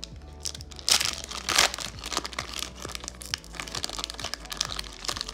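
Foil wrapper of a Japanese Pokemon card booster pack being torn open and crinkled by hand, with two louder rips about one and one and a half seconds in.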